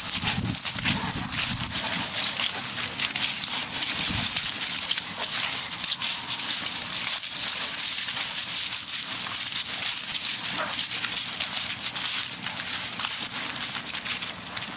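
Footsteps and rustling through grass and dry leaves: a steady run of swishes and crackles from walking through the meadow.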